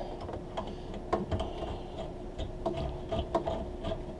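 Washing-machine hose coupling being threaded by hand onto a laundry valve outlet: irregular small clicks and scrapes of the metal fitting turning on the threads.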